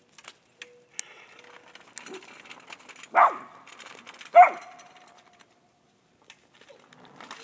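Dog barking twice, about a second apart, the second bark trailing off into a short whine.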